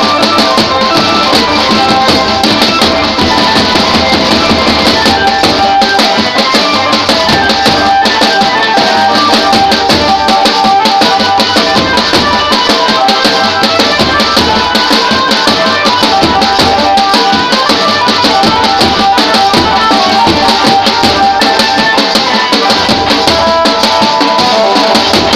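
Banjo party band playing loud, continuous music: an amplified Indian banjo carries the melody over fast, busy drums.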